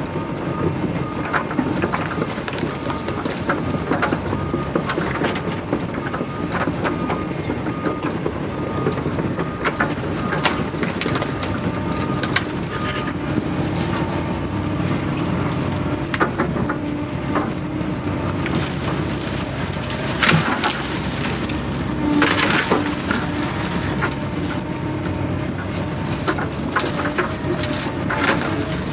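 Doosan excavator's diesel engine running steadily, heard from inside the cab, with the bucket cracking and knocking as it works through brush and debris in a wet ditch. The loudest bursts come about two-thirds of the way through.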